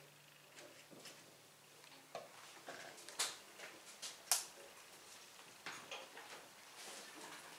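Sparse, quiet clicks and taps from a free-improvisation ensemble playing very softly. A low held note dies away about two seconds in, and the two sharpest clicks come about three and four seconds in.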